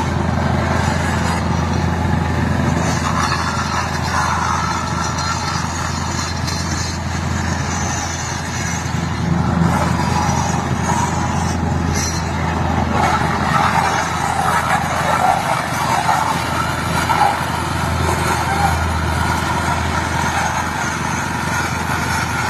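Small engine of a plate vibrator running steadily, compacting freshly poured concrete, with a continuous low drone.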